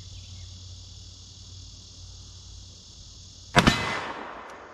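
A single shot from a Smith & Wesson Model 500 revolver chambered in .500 S&W Magnum, firing a 500-grain lead load. It comes about three and a half seconds in, and the report dies away over about a second. Insects buzz steadily underneath.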